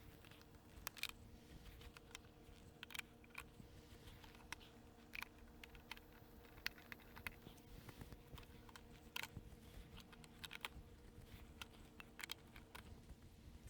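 Faint, irregular light clicks and taps from handling composite garden-bed boards and plastic stacking stakes, over a low steady hum.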